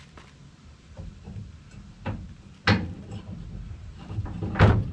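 Heavy steel stabilizer hitch being lifted and pushed into a truck's receiver tube, metal knocking and clanking against metal a few times, the loudest knock near the end.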